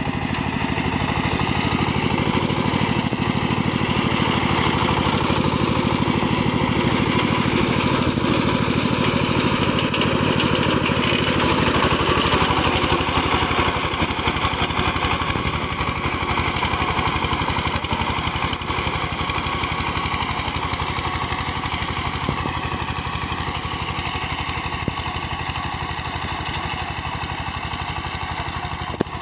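Forte 240 mini tractor's engine running steadily under load as it drives a rear-mounted rotary tiller through the soil.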